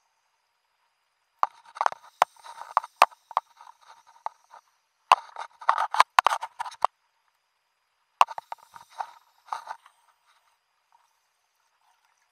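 A scuba diver's regulator exhaust bubbles underwater: three bubbly bursts with sharp clicks, one for each exhalation, about three and a half seconds apart.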